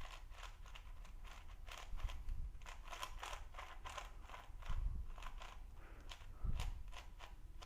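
Shengshou 5x5 puzzle cube being turned by hand for its first turns: a fast, irregular run of plastic clicks and clacks as the layers turn, with two duller low thumps partway through. The turning is decently smooth, with a little catching.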